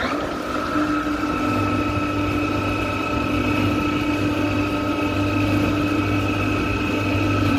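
Davit winch motor running steadily, winding the enclosed lifeboat on its wire falls. It gives a steady whine over a low hum, starts abruptly and cuts off abruptly.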